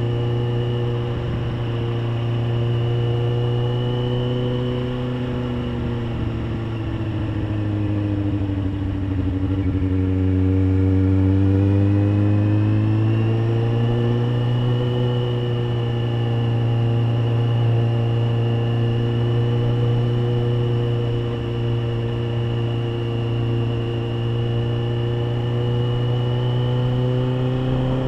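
Road motorcycle engine running under way, heard from the rider's seat. Its note drops for a few seconds before the middle, then climbs back up as the bike gets on the throttle again.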